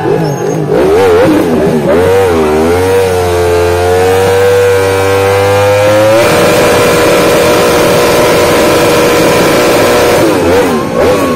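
Racing motorcycle's engine revved hard and held at high revs during a burnout, the rear tyre spinning on the tarmac. The pitch wobbles, climbs and holds, jumps up about six seconds in and stays steady, then falls away with uneven blips near the end.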